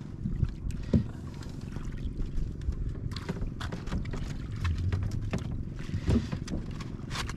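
Water slapping against the hull of a small wooden outrigger boat, over a low rumble of wind on the microphone, with a few short knocks of wood and line against the boat.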